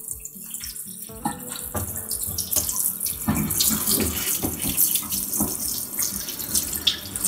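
Running tap water splashing over a slab of blanched pork belly as it is rinsed by hand under the faucet, washing off the scum left by blanching. The water gets louder about a second in.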